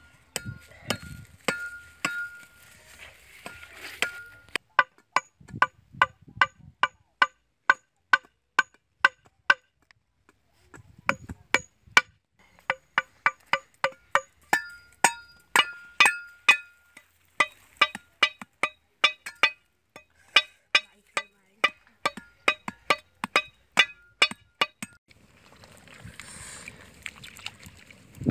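A steel cleaver striking bamboo and wood in a quick steady series, about two or three sharp blows a second, some with a metallic ring, as sticks are cut and driven into the ground. Near the end a soft hiss sets in.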